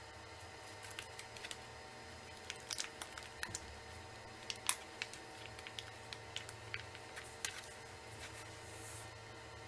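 Scattered light clicks and snaps of a laptop's plastic case and small parts being handled during a hard drive replacement, the sharpest click about halfway through, then a short soft hiss near the end.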